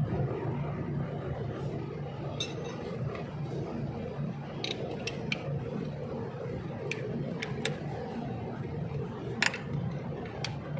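Irregular metallic clicks and clinks of a 10 mm socket on a long extension working the A/C hose bolts, over a steady low background hum.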